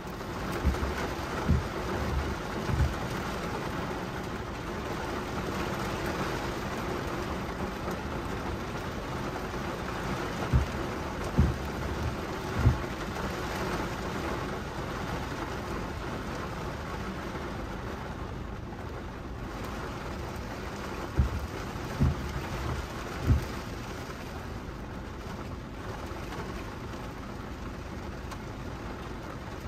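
Heavy thunderstorm rain beating steadily on a car's windshield and body, heard from inside the car. Brief low thumps come in clusters of three, about every ten seconds.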